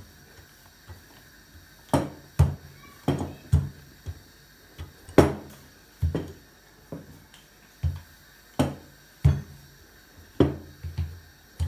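Wooden rolling pin knocking on a table as dough is rolled out thin: irregular sharp thumps, about a dozen, roughly one a second, some in quick pairs.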